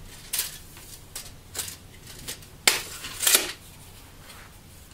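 Handling noises from a steel tape measure being retracted and put away: a few short rustles and scrapes, with a sharp click about two and a half seconds in as the blade snaps back into its case.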